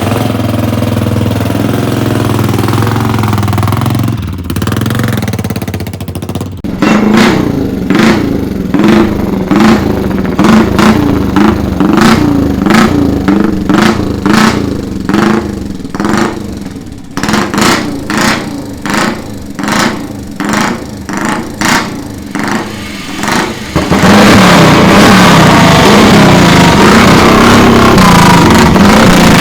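Classic AWO 425 single-cylinder four-stroke motorcycle engine running steadily, then revved in short throttle blips about once a second for some seventeen seconds, then held at high revs near the end.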